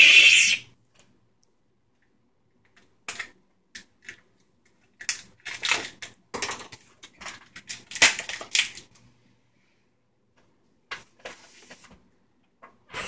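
A toy lightsaber's electronic hum ends in a loud sound-effect burst near the start. Then come a series of short, sharp ripping and scraping sounds as packing tape and cardboard are worked on a cardboard mailing tube to open it.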